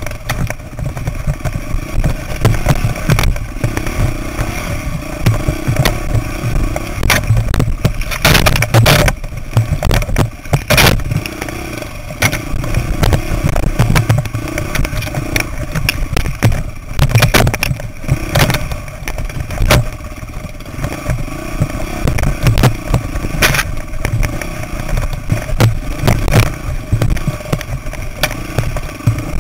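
Dirt bike engine running at low revs while the bike bumps down a rocky trail, with a rumble of wind or buffeting on the microphone and many sharp knocks and clatters as the wheels strike rocks.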